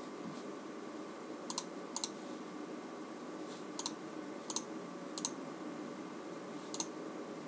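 Computer keyboard keys clicking now and then, about six times and mostly in quick pairs, over a steady low hum.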